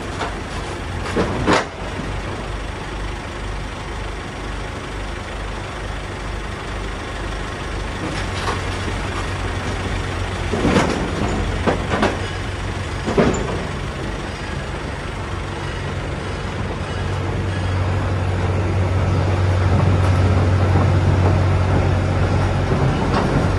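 Hitachi mini excavator's diesel engine running steadily as the machine tracks forward, with a sharp knock about a second and a half in and three more around the middle. The engine hum grows louder over the last several seconds.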